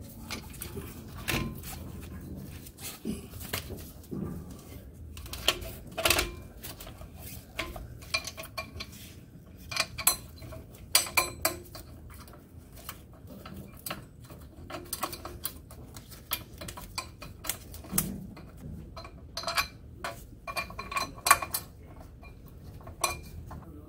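A steel clutch pressure plate being fitted onto an engine's flywheel over a clutch disc: irregular metal clinks and light knocks as the parts touch and are shifted into place.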